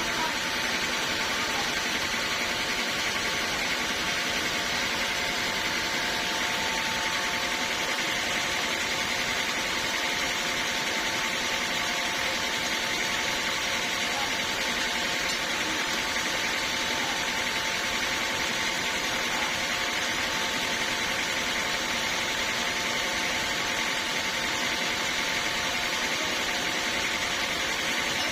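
Sawmill saw running steadily through teak, a continuous even machine noise with a constant whine.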